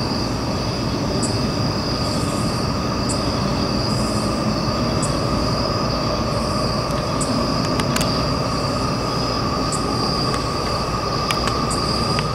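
Freight train of loaded rock cars running through at speed: a steady rumble of wheels on rail with a steady high wheel squeal on top and occasional sharp clicks.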